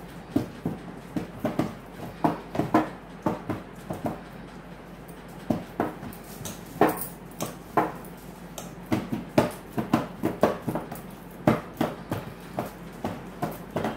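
Hands kneading dough in a steel plate: irregular light knocks and clinks from the plate and from bangles on the wrists, several a second.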